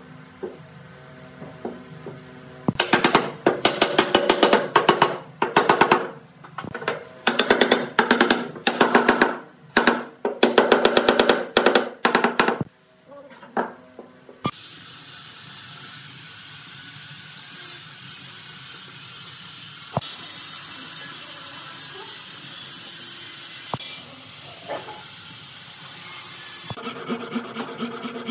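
Hand saw cutting through wooden dowels in repeated strokes, each stroke a burst of rasping teeth with a ringing blade tone. A quieter stretch of steady hiss with a few light knocks lies in the middle, and the sawing strokes start again near the end.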